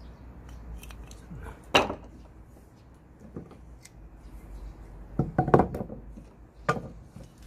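Split firewood pieces being handled, knocking and clattering against each other: one sharp knock about two seconds in, then a quick cluster of knocks a little past halfway and another single knock near the end.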